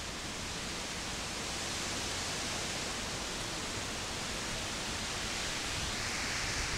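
Heavy rain pouring down in a strong windstorm, a steady even hiss.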